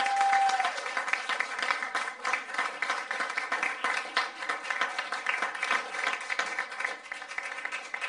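Applause, many hands clapping in a dense patter, with a held tone through the first second. It grows gradually quieter.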